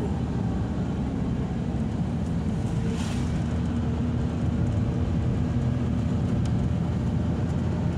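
Steady engine and road rumble inside a moving vehicle's cabin, driving on without change.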